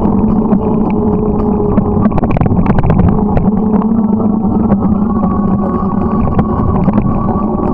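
Motorcycle engine running at a steady cruising speed while riding, its pitch shifting slightly about halfway through, over steady road noise with scattered small clicks.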